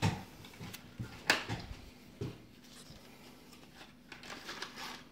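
Pen scratching on a paper sketchpad, with a few light knocks on a wooden table, the sharpest about a second in.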